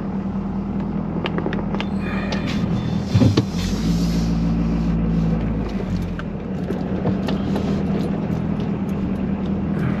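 Truck engine running as the truck drives slowly, heard from inside the cab, a steady hum that grows a heavier low rumble about four to six seconds in.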